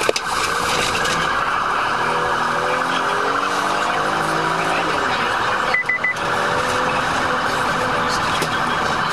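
Police squad car's siren sounding continuously, heard from inside the car, with a rapid pulsing warble and gliding tones. About six seconds in it dips briefly and three short high beeps sound.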